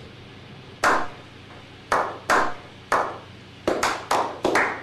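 A series of about ten sharp smacks, widely spaced at first and coming faster in the last second or so.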